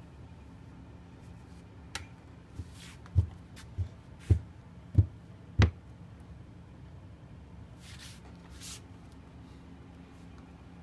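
Hands patting a wet crocheted doily flat on a towel-covered countertop: a run of about seven soft thumps, roughly two a second, followed by a couple of light brushing swishes.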